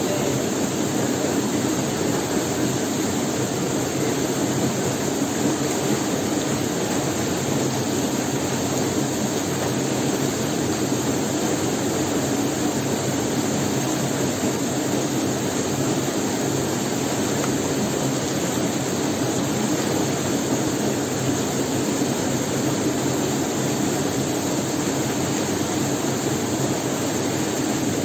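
Small waterfall pouring into a rock pool: a steady, even rush of falling water.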